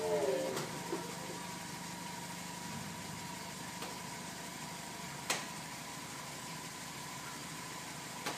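Daihatsu Copen's electro-hydraulic roof pump whining down and stopping as the folding hardtop finishes closing. After it, a steady hum is left with a few sharp clicks; the loudest click comes about five seconds in.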